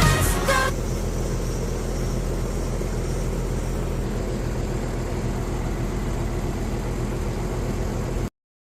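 Air conditioner unit running: a steady, even mechanical hum with a low drone, which cuts off suddenly near the end. A short tail of background music ends just under a second in.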